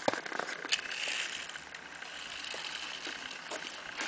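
Small electric motor and gears of a toy remote-control car whirring as it runs across asphalt, steady from about a second in. There are a few sharp clicks in the first second.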